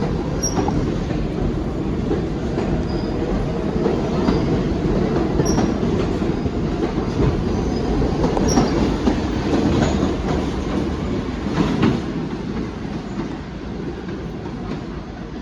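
New York City subway Q train running through the station, a steady rumble with wheels clicking over rail joints and switches and a few faint, brief wheel squeals. It grows fainter over the last few seconds.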